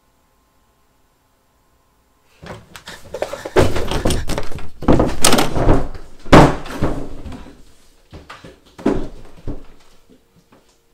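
Near silence, then after about two seconds a string of loud, heavy thuds and bangs, loudest about six seconds in, tailing off into scattered smaller knocks.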